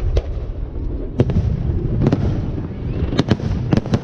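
Aerial firework shells bursting in a series of sharp bangs, several in quick succession near the end, over a steady low rumble.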